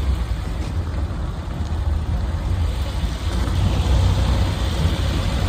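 A car driving along a road, heard from just outside its body: a steady low rumble with tyre and road hiss that grows a little louder about halfway through.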